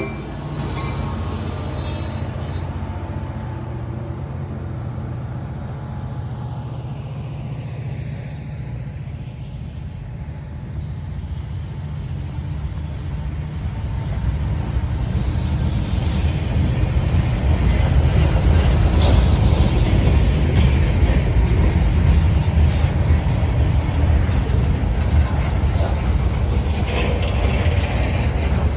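Freight train rolling past: a steady low rumble of the locomotive and then the covered hoppers and boxcars moving over the rails, growing louder about halfway through.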